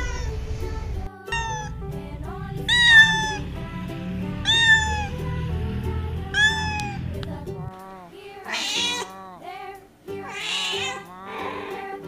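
Domestic cats meowing over and over, one arched meow every second or two, over background music with a steady low beat that drops out about eight seconds in; the later meows are breathier.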